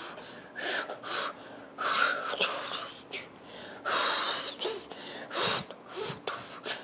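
A child making short, breathy huffs and whispery mouth noises, in uneven bursts with short gaps between them.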